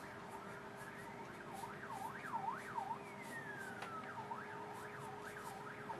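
Faint siren sweeping rapidly up and down in pitch, several times a second, with one long falling sweep about halfway through.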